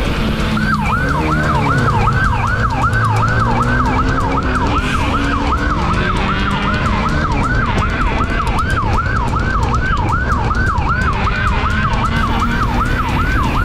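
Police siren in a fast yelp, sweeping up and down about three times a second, starting about half a second in, over a running vehicle engine.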